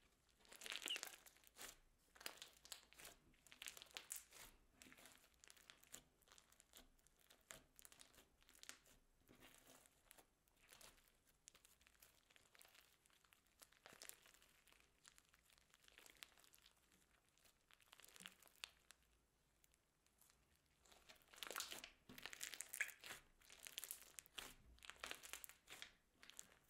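Hands kneading, stretching and folding white slime mixed with foam beads and other bits, giving faint, rapid sticky clicks and pops. The handling is loudest about a second in and again in a stretch near the end.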